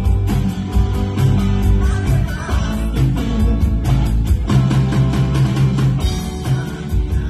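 Live rock band playing amplified electric guitars over a drum kit, with regular drum hits and a steady driving beat.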